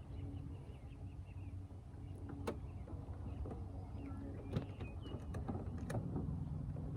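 A boat motor running with a steady low hum that shifts slightly in pitch near the end, with a few sharp clicks and knocks and some short bird chirps.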